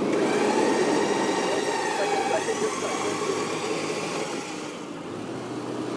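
Vehicle-mounted electric winch running under load, its motor whining steadily beside a running engine, as it pulls a vehicle through deep snow. It fades gradually toward the end.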